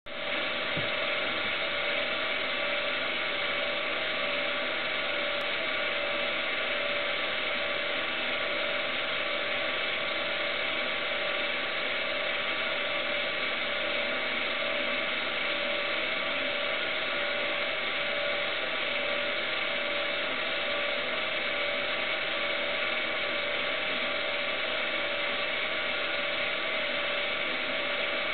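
Steady mechanical whirring with several unchanging tones, holding the same level throughout: the running noise of a camcorder's own motor picked up by its built-in microphone.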